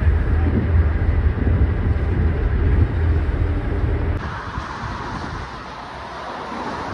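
Ferry's engine running with a steady low hum, with wind on the microphone and water rushing past. About four seconds in, the sound cuts abruptly to a quieter, even hiss.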